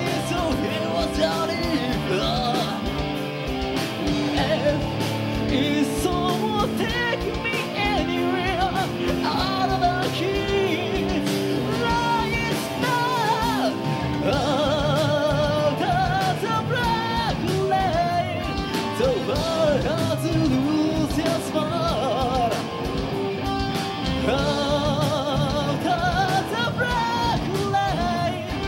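Live metal band playing: electric guitars, bass and drums at full volume with a male vocalist singing over them.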